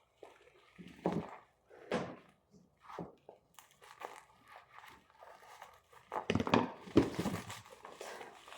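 Parcel packaging being torn and crinkled as it is opened by hand, in irregular rustling bursts that grow busier about six seconds in.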